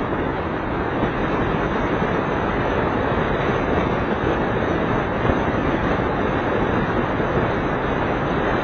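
Steady road noise of a car driving: tyres on asphalt and the engine running, heard from inside the cabin.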